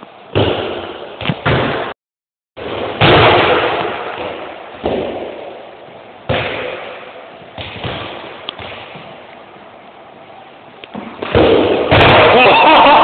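A series of loud bangs several seconds apart, each echoing and dying away slowly in a large, bare hall. Shouting voices take over near the end.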